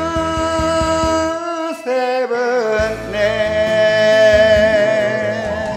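Enka singing over a karaoke backing band: a voice holding long notes with a wavering vibrato, dropping in pitch about two seconds in, then holding a higher note to near the end.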